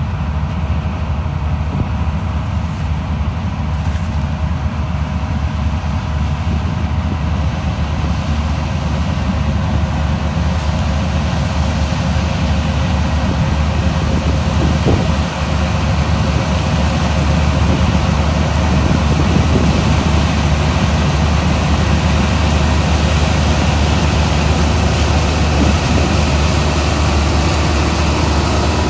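Heavy diesel machinery running steadily at a constant speed, a loud low hum with a few steady higher tones over it.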